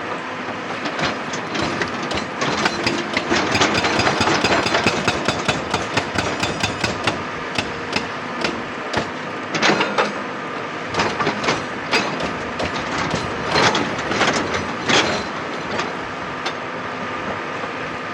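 Excavator running steadily while working rock, with rapid metallic knocks and clanks. The knocks come several a second for the first half, then thin out to scattered, louder clanks.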